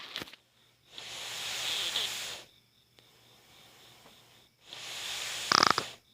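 A sleeping child snoring: a long, hissing breath, a quiet pause, then another breath that ends in a short, loud, pig-like snort near the end.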